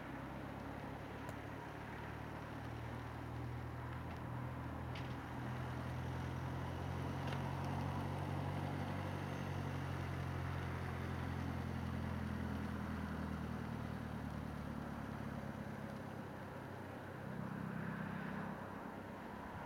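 A small car's engine running at low speed, a steady low hum that grows louder as the car drives past and then eases off, with a change in its tone near the end.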